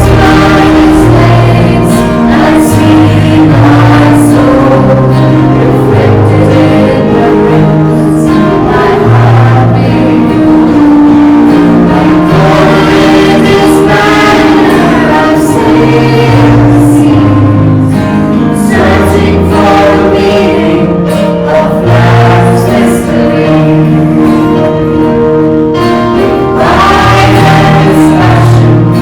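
Choral music: voices singing sustained lines over a slow bass line that steps from note to note.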